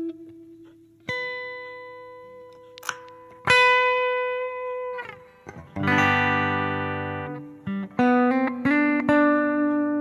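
Electric guitar played through the Zoom G1X On pedal's Ambience reverb: single notes left to ring with long decays, a fuller chord about six seconds in that is cut short after a second and a half, then more notes near the end.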